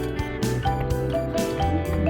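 Background music: an instrumental track with a melody line over a bass and a steady beat.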